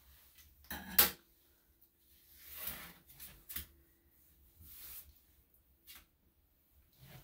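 Steel grooming scissors set down on a grooming table with a sharp clack about a second in, followed by soft rustling and a few light taps.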